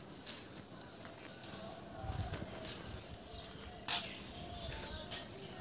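Insects shrilling in one continuous high-pitched drone, with a couple of faint clicks in the second half.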